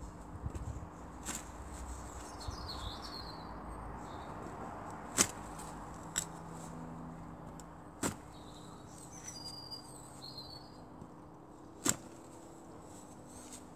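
A long-handled half-moon lawn edger being stamped into turf, giving three sharp chops a few seconds apart and a few fainter ones. Birds chirp in the background.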